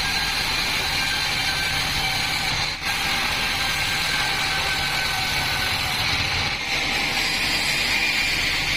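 Large bandsaw mill running, a steady high whine over a low rumble.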